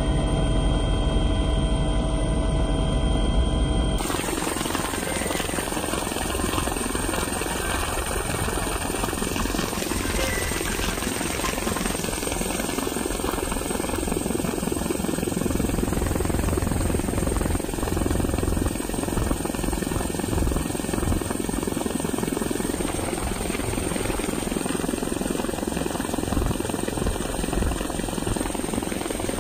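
Steady roar of a fast floodwater torrent, a continuous rushing rumble with no pause. For the first few seconds a steady hum of several tones sits on top of it.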